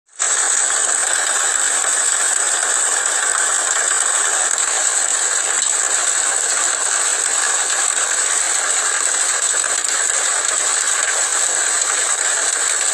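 Hailstones pelting down in a hailstorm: a loud, dense, steady clatter with no let-up.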